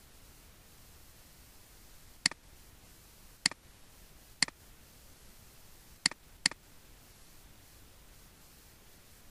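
Computer mouse button clicking: five sharp single clicks spread over a few seconds, the last two close together, over faint hiss.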